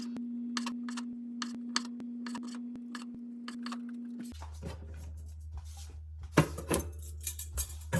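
Kitchen utensils and dishes clicking and clattering over a steady hum, with a cluster of louder knocks about six seconds in.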